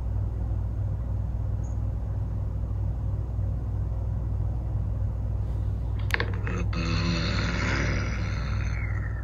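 A steady low hum throughout. About six seconds in there is a sharp click, followed by about two seconds of rustling close to the microphone as a person moves back in front of it.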